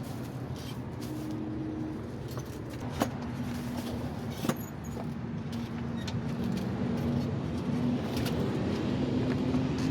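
A motor running with a steady hum that rises slightly in pitch and grows a little louder, broken by two sharp clicks about three and four and a half seconds in.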